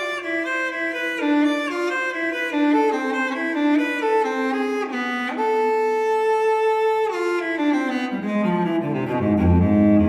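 Background music played on bowed strings: a slow melody stepping downward, one long held note in the middle, and deeper cello-like notes coming in near the end.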